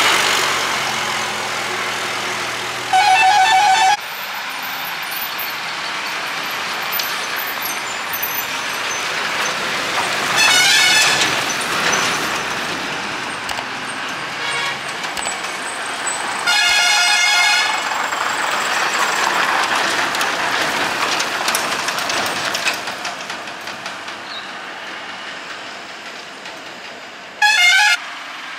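Heavy vehicles running on a ghat road bend, engine and tyre noise steady throughout, cut by four loud horn blasts, each about a second long and the third the longest. Each blast is one pulsing multi-tone note, typical of an Indian truck or bus horn.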